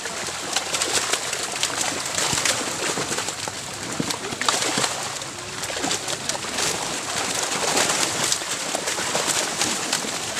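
Dense splashing and slapping of many netted fish thrashing in shallow water, a continuous crackle of small splashes and flaps.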